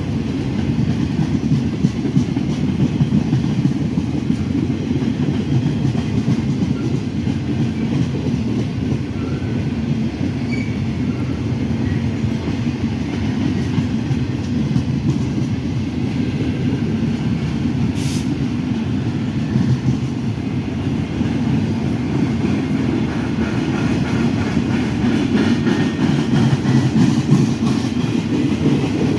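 Freight train cars rolling past: a steady low rumble of wheels on rail with clickety-clack, and a single sharp click about eighteen seconds in.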